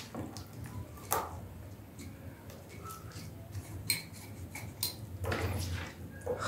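Shredded red cabbage being packed by hand into a glass jar: soft rustling of the cabbage, with a few light clicks and knocks of the glass jar. The rustling grows louder near the end.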